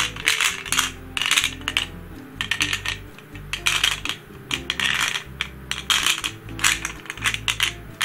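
Loose plastic pyramid pieces rattling and clicking against each other and the clear plastic shell of a Sengso Rock Ball gravity puzzle as it is tipped and turned in the hands, in repeated bursts of clatter.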